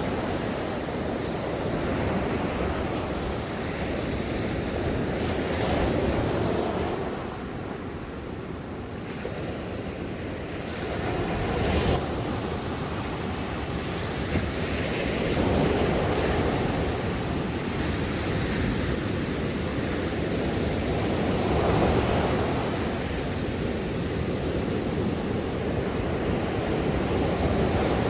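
Ocean waves breaking and washing on a shore, a continuous rush that swells and eases every few seconds, with a quieter lull about a third of the way in.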